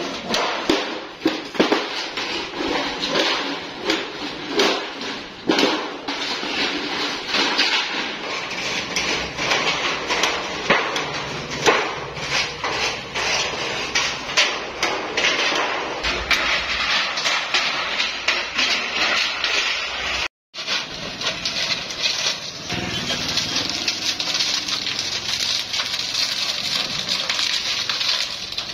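Thin steel sheet being cut with long-handled hand shears and handled: a run of sharp snipping clicks with the crinkling and rattling of the sheet metal. About twenty seconds in the sound cuts out for a moment, and a steadier noise with fewer clicks follows.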